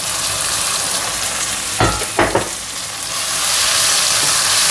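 Tomato and onion masala sizzling in a hot pan as it is stirred with a spoon, with a couple of knocks or scrapes of the spoon about two seconds in; the sizzle gets louder near the end.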